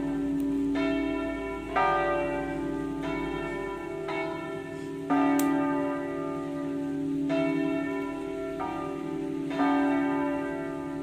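Bronze church bells cast by De Poli swinging in a full peal (distesa) with flying clappers. Their strikes overlap unevenly, about one a second, over a steady ringing hum.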